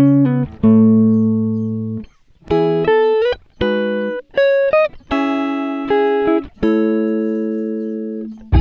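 Background music: a guitar playing a slow melody of single notes and chords, each ringing out and fading, a few with a short slide up in pitch.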